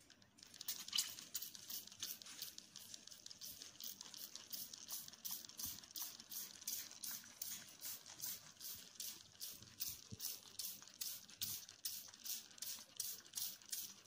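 A hand-held trigger spray bottle misting water in quick repeated squeezes, about three short hisses a second.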